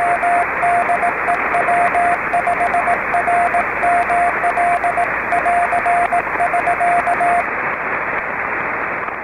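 Morse code (CW) on a single steady tone, keyed in dots and dashes over radio receiver hiss. The code stops about seven seconds in, leaving only the hiss.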